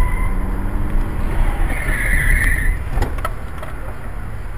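Steady low rumble of a car's engine and road noise heard inside the cabin while driving in traffic. A brief high-pitched sound comes about two seconds in, and a few sharp clicks follow about a second later.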